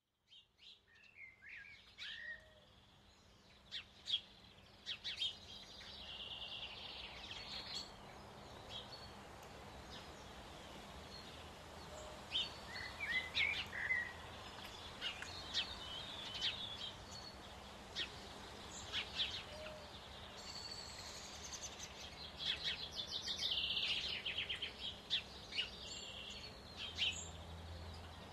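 Several birds singing and chirping in short, varied calls over a steady outdoor hiss, with a rapid trill about three-quarters of the way through.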